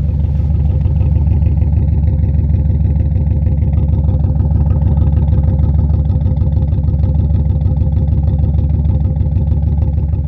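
Pickup truck engine idling steadily, a low, even running sound.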